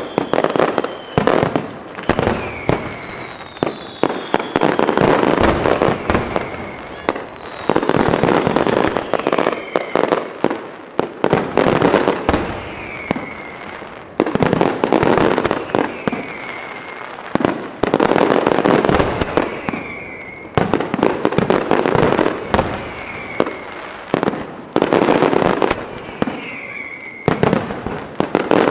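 Large aerial fireworks display: rapid volleys of sharp bangs and crackling reports come in waves every two to three seconds, with whistling shells falling in pitch between them.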